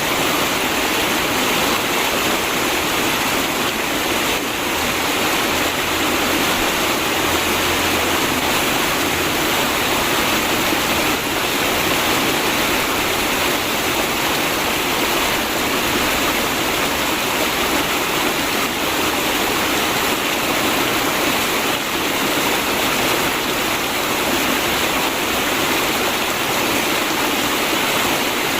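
River water flowing and rushing steadily, a loud, even hiss.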